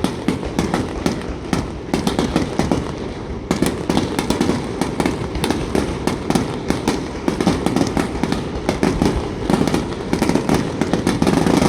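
Starmine fireworks barrage: dense, rapid bangs and crackles of shells bursting overhead, overlapping almost without a break, with a short thinning about three and a half seconds in.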